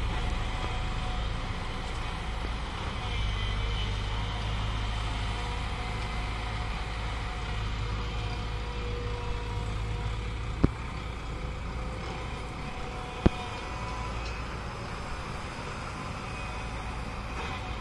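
Diesel engines of tipper trucks and a tracked excavator running steadily in a low drone, with two sharp knocks a few seconds apart past the middle.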